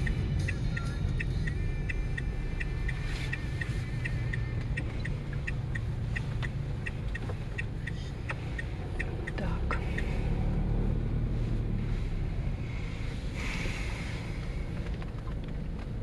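Car driving, heard from inside the cabin: engine and road noise make a steady low rumble. For roughly the first nine seconds a quick run of short high ticks, about two to three a second, sounds over it.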